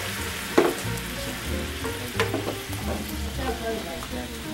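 Water sizzling and bubbling in a hot, oiled frying pan just after it has been poured in to boil, with a few sharp clacks, the loudest about half a second in.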